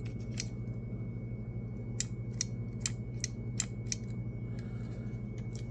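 Float switch of a Honeywell portable air conditioner clicking about nine times as the float is moved by hand, most of the clicks coming in a quick run in the middle; this is the switch that trips the P1 error code.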